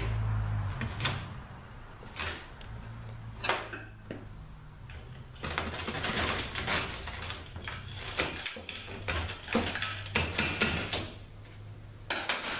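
Drive chain and sprockets of a THM-125C automatic transaxle being worked out of the case: scattered metallic clinks and knocks, then a denser run of chain and metal parts rattling and clattering in the middle, with a short clatter near the end.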